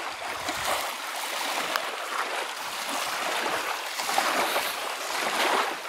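Small waves lapping and washing on a sandy shore, a steady shifting rush of water.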